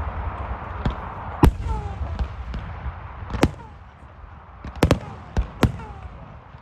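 Aerial fireworks bursting overhead: a string of sharp bangs, irregularly spaced about a second apart, with two close together about five seconds in, over a low rumble that dies away early.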